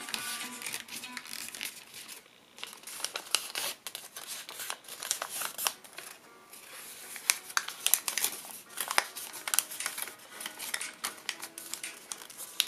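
A sheet of origami paper being folded and creased by hand: crisp, irregular crinkles and crackles as the paper is bent, flattened and pressed along its folds.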